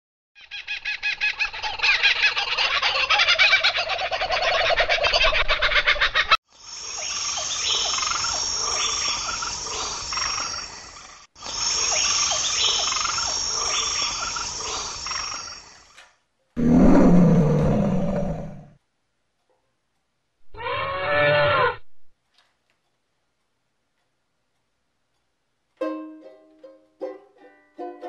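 A run of separate jungle animal sound clips: a fast croaking trill, two stretches of dense high chirping and calls, a short loud low-pitched call, and a brief call that bends in pitch. After a few seconds of silence, a banjo ukulele starts picking single notes near the end.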